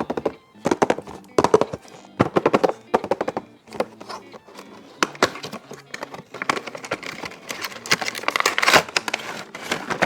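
Toy boxes and plastic toys being handled and unpacked: runs of sharp clicks and knocks, with a denser stretch of rustling from about six and a half to nine seconds in, over quiet background music.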